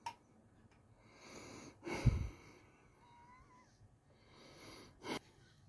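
Soft breathing sounds and brief handling noises close to the microphone, with a low thump about two seconds in as the loudest sound.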